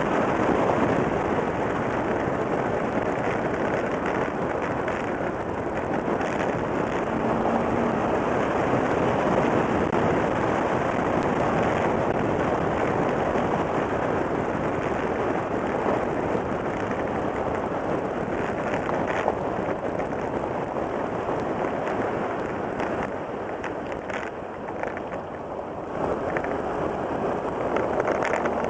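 Wind rushing over a microphone mounted on the outside of a moving car, mixed with tyre and road noise, with a few faint crackles.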